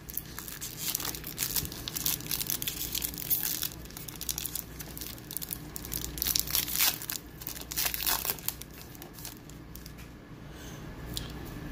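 Wrapper of a 2021 Bowman Baseball hobby pack being torn open and crinkled by gloved hands, in irregular crackles that thin out over the last few seconds.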